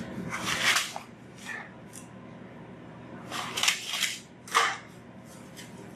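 Brown paper soil sample bag being handled and opened: a few short bursts of paper crinkling and rustling.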